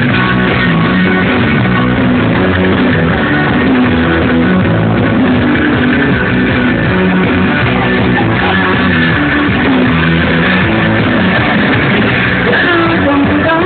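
Live rock band playing loud and steady on electric guitars over a full band, heard from within the crowd.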